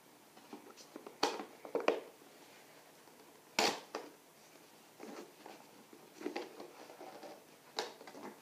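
Hands working at a cardboard headphone box to get it open: scraping and rustling of the packaging, broken by about half a dozen sharp clicks and knocks, the loudest about three and a half seconds in.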